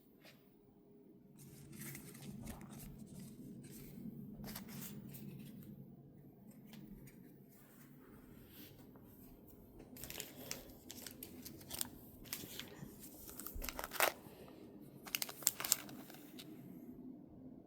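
Packaging wrappers crinkling and tearing open, with irregular crackles and clicks that grow denser and louder in the second half. The sharpest tearing bursts come about two-thirds of the way in.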